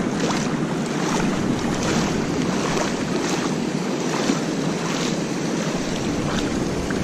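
Steady rushing noise of flowing river water mixed with wind buffeting the microphone.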